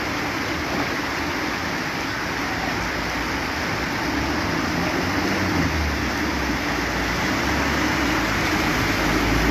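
Floodwater flowing fast over a street, a steady rushing noise. About halfway through, a light truck's engine grows louder as it drives through the knee-deep water close by.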